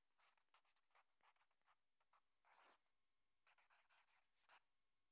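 Faint scratching of a pen writing on lined notepaper, in a series of short strokes.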